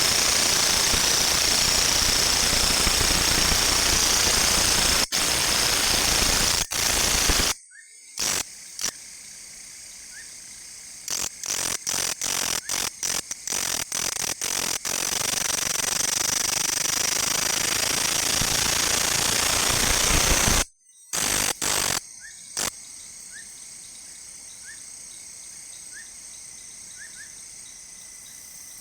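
A loud machine runs with a rough, even noise, stops about seven seconds in, then starts and stops in a string of short bursts before a long run that cuts off suddenly about twenty seconds in, followed by a few more short bursts. In the quiet gaps, faint short chirps can be heard.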